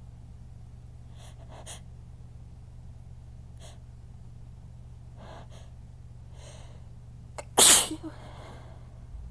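A person sneezes once, hard and loud, about three-quarters of the way in. The sneeze follows several faint, quick catching breaths as it builds. It is one of a fit of strong sneezes.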